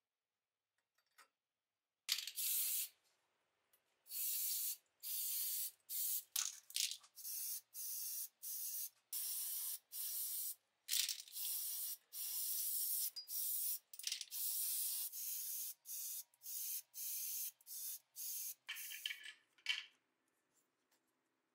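Spray paint hissing in a long series of short bursts, about twenty, each from a fraction of a second to a second long, as small model-car parts are coated. It starts about two seconds in and stops just before the end.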